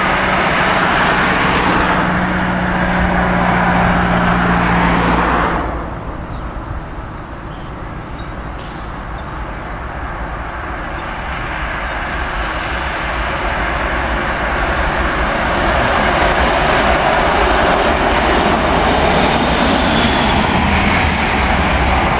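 A locomotive-hauled Talgo tilting train approaching and passing on the tracks below, a broad rushing rumble that grows steadily louder through the second half. Earlier, a loud noise with a low steady hum cuts off abruptly about six seconds in.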